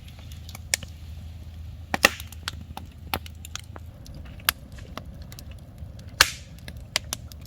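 Campfire crackling: burning wood giving off irregular sharp pops over a low steady rumble, the loudest pops about two seconds in and again about six seconds in.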